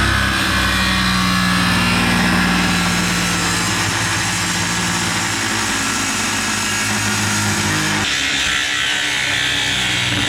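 Power saw running and cutting through solid steel round bar to make new loader pins, a loud, steady motor sound over the hiss of the cut. The sound changes about eight seconds in.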